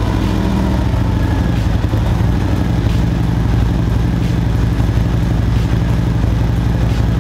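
Harley-Davidson Milwaukee-Eight V-twin, freshly fitted with a Feuling 465 Reaper cam, running at a steady idle just after starting.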